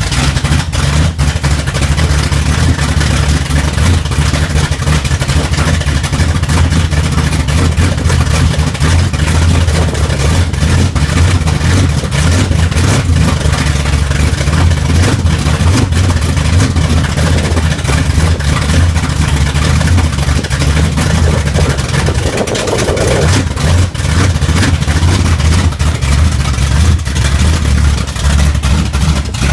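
Mustang drag car's engine running loudly at a steady idle, with a brief dip and change in its note about three-quarters of the way through.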